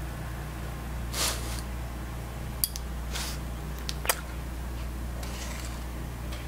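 Knife and fork cutting into a soft whipped-cream-covered pudding: two short scraping swishes and two sharp clicks of metal on the plate, over a steady low hum.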